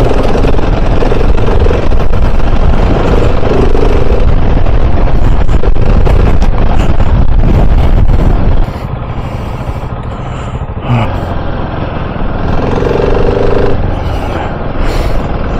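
KTM 690 Enduro R's single-cylinder engine running as the bike is ridden, under a heavy low rumble of wind and road noise. About two-thirds of the way through, the rumble drops sharply and then goes on more quietly.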